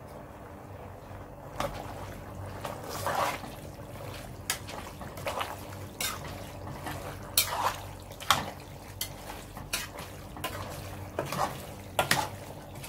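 A metal spoon stirring boiled elbow macaroni into tomato sauce in an aluminium pot: wet squelching with irregular clinks and knocks of the spoon against the pot, a few sharper ones about seven and eight seconds in and near the end, over a steady low hum.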